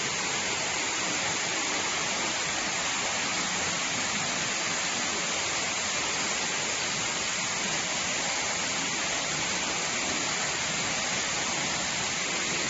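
Wood pellet production line machinery running: a steady, even hiss with no changes.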